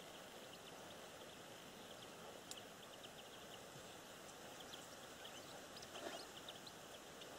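Near silence: faint lakeside ambience, a soft hiss with scattered faint high-pitched ticks.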